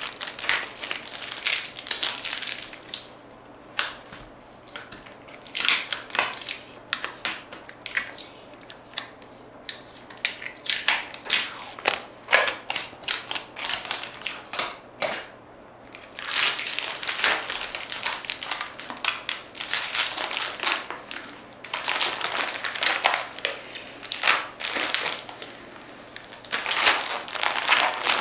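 Irregular crinkling and crunching of something being crumpled and handled, in uneven bursts of rustles and clicks with a few short pauses.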